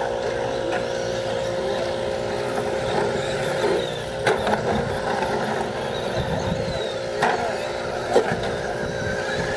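RC short-course trucks racing on a dirt track: a steady mix of motor whine and tyre noise, with a few sharp knocks from trucks landing or hitting each other.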